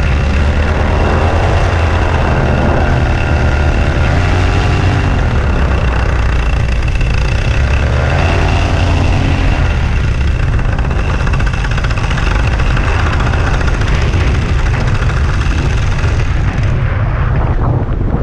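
Blackhawk 125 paramotor's two-stroke engine running steadily at idle, its pitch wavering a little up and down. It fires and keeps running on a newly repaired spark plug cap and a new plug.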